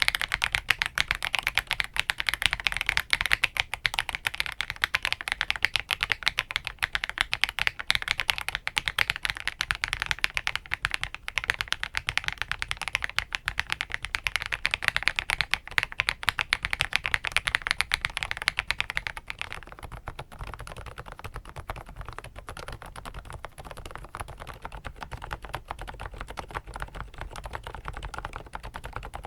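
Rapid, continuous typing on an FL-Esports X80 mechanical keyboard, a dense stream of keystroke clacks. About twenty seconds in the keystrokes become quieter and duller.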